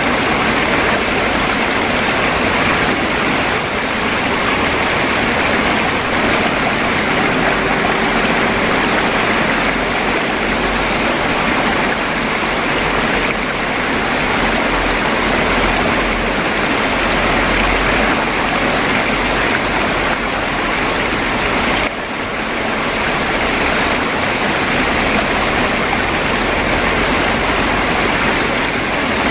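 River water flowing and babbling steadily, with a brief dip in level about 22 seconds in.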